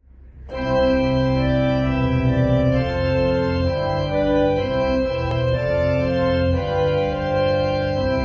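Organ music: held chords that change every second or two, coming in about half a second in.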